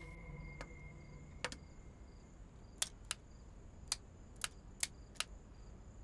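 Abacus beads clicking: single sharp clicks at uneven intervals as the beads are flicked while accounts are tallied.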